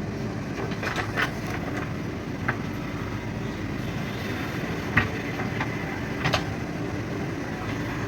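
JCB backhoe loader's diesel engine running steadily, with several sharp clanks as it works; the loudest comes about five seconds in.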